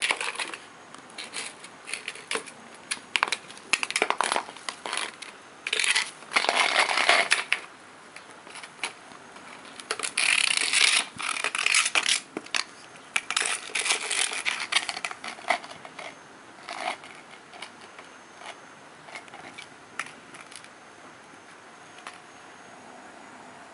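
A small flower pot scraping, rattling and knocking on paving stones as a puppy noses and pushes it around, in irregular bursts that are loudest about six to seven seconds in and again around ten to twelve seconds, then die down near the end.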